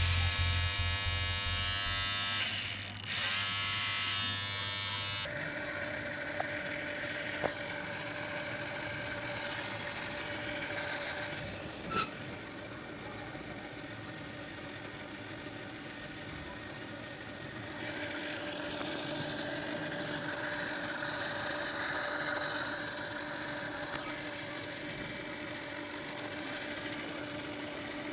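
A small electric motor humming steadily, with a single click about twelve seconds in.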